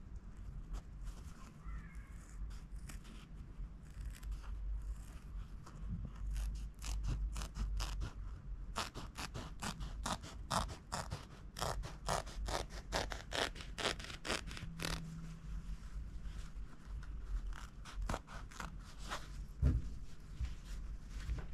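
Scissors cutting through lining fabric in a run of short, quick snips, thickest in the middle stretch. A soft bump comes near the end.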